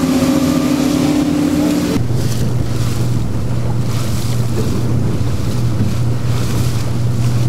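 Outboard motor of a rigid-hull inflatable boat running at speed, with rushing water and wind. For the first two seconds the engine note is higher as the boat passes close by; then it changes to a lower steady drone heard from aboard.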